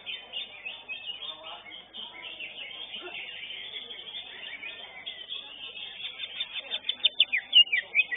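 Cucak hijau (greater green leafbird) song: a dense, unbroken stream of quick chirps and whistles, with a run of louder, sharp notes near the end.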